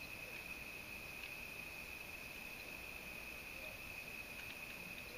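A steady high-pitched trill, with faint scattered ticks from an M6x1 thread tap being worked by hand in the aluminium cam chain tensioner boss of a 1978 Honda CX500 engine.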